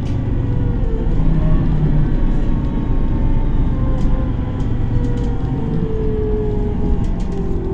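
Solaris Urbino 18 III articulated city bus driving, heard from inside the passenger compartment: a steady low engine and drivetrain rumble with a hum that slowly drifts in pitch, and faint rattles.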